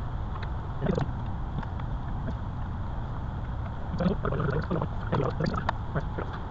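Steady low workshop rumble with the clicks and knocks of hand tools and metal parts being handled under a car: a brief clatter about a second in and a busier run of knocks between about four and six seconds in.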